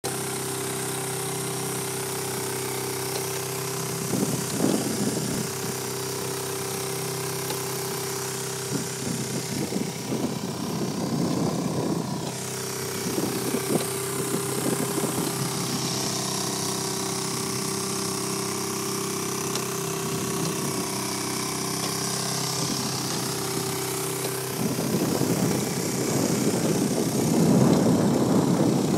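A motor running steadily with a constant hum, with irregular rushing noise at times that is strongest near the end.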